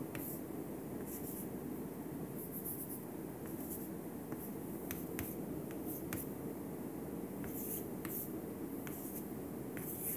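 Chalk writing on a chalkboard: short scratching strokes and light taps at irregular intervals, over a steady low room hum.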